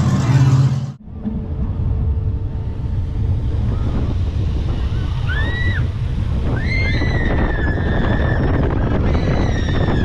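On-ride sound of a Zamperla junior roller coaster train running on its track: steady wind rushing over the microphone and a low rumble. From about halfway through, high squeals rise and fall, then settle into a steadier squeal near the end.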